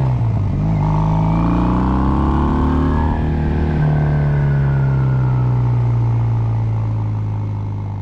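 Kawasaki W800 parallel-twin engine under way through stainless headers and reverse-cone megaphone slip-on mufflers. The revs climb for about three seconds, then hold steady, and the sound fades out near the end.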